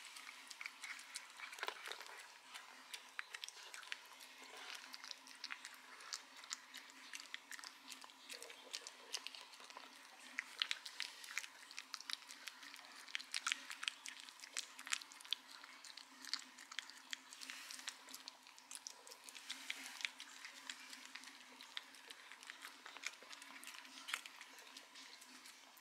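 A maltipoo eating wet dog food from a ceramic bowl: wet smacking and lapping as it chews, a quick irregular run of small clicks and slurps that goes on throughout.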